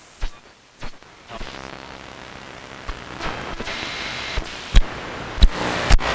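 Electronic noise riser: a hiss that swells louder and brighter over several seconds, broken by a few sharp clicks and hits, then cuts off suddenly near the end.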